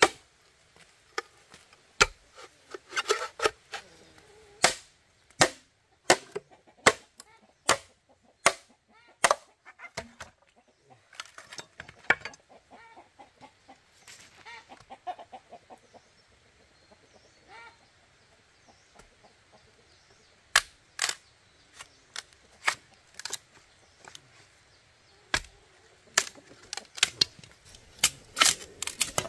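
Sharp knocks of a tool striking bamboo, coming in irregular runs of about one to two blows a second with a pause in the middle, while chickens cluck now and then.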